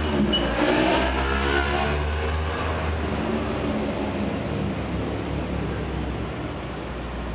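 A motor engine passing by: its pitch bends over the first couple of seconds, then it fades slowly over a steady low rumble.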